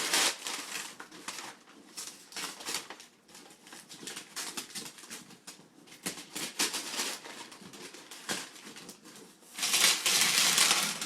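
Crinkling and rustling of a gift's packaging as a taped-shut present box is handled and opened: irregular crackles throughout, with a louder rush of rustling near the end.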